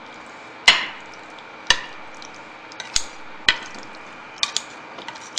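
Kitchen scissors snipping through cooked carrot and pork on a plate. There are about six sharp, crisp snips at irregular intervals, one every half second to a second.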